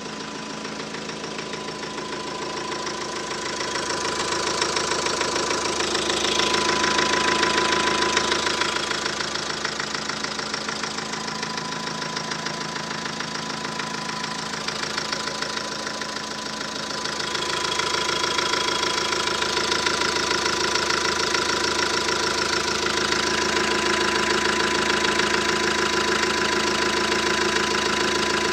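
Renault Trafic engine running with a steady, rapid knock from the engine area, which appeared once the engine was hot; the owner suspects an injector. The engine gets louder about four seconds in and again a little past halfway.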